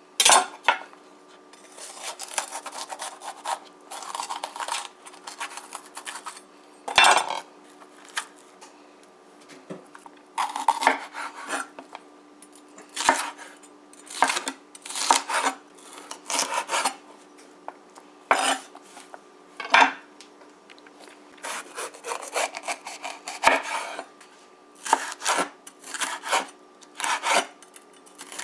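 Chef's knife slicing bell peppers into strips on a wooden cutting board: irregular clusters of sharp knife strokes knocking on the board, with short pauses between them. A faint steady hum runs underneath.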